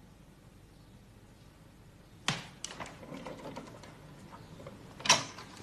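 Sharp mechanical clicks with small rattles between them: one sharp click about two seconds in, a few lighter clicks after it, and a louder click near the end.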